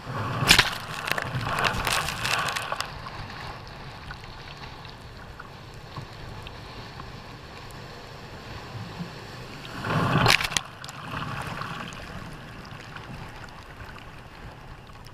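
Jet ski riding through rough, storm-driven surf: spray crashes over the craft in a loud rush near the start and again about ten seconds in, over a steady rush of wind and water.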